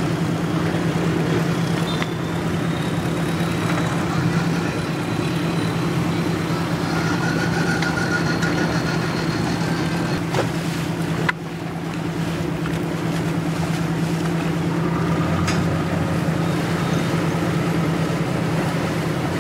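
A boat engine running at a steady drone, with the rush of water and wind noise over it.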